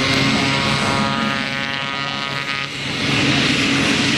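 RAF Short Tucano T1's single turboprop engine and propeller as the trainer rolls fast along the runway: a whine of several tones over propeller noise, giving way about three seconds in to a louder, brighter rush.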